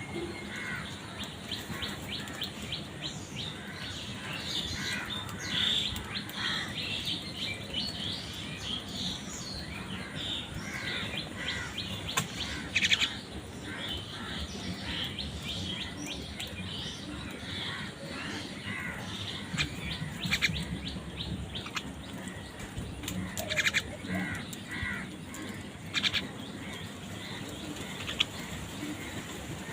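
A busy chorus of birds chirping continuously, with a few louder crow caws standing out at intervals.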